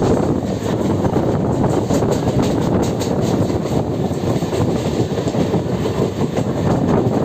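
Mumbai local electric suburban train running along the track: a steady rumble, with some clicking of the wheels over the rails.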